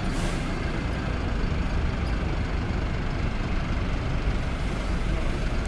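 Alexander Dennis Enviro 400 hybrid double-decker bus with its diesel engine running as it pulls away from the stop, a steady low rumble. A short hiss of air comes right at the start.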